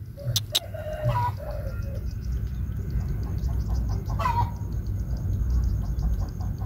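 Chickens calling: a few short clucking notes about half a second in and a longer call around four seconds in. A couple of sharp clicks come just before the first notes, over a low steady rumble.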